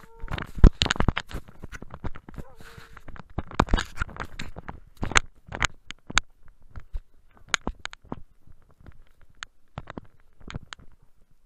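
Snow crunching and scuffing with irregular sharp knocks close to a camera at snow level, from dogs playing in the snow around it. The knocks are dense and loud for the first few seconds, then thin out to scattered ticks.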